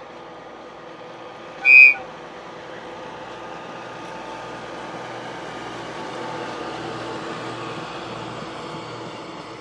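Container freight train rolling past behind a DD56 diesel locomotive: a steady rumble of wagon wheels on the rails that swells and then eases. About two seconds in, one short, high toot from the locomotive's horn.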